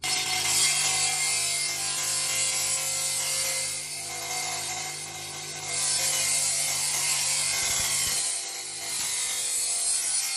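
Belt-driven table saw running and ripping a wooden plank along its fence: a steady motor-and-blade hum under a high rushing cutting noise. The noise eases off twice as the feed changes.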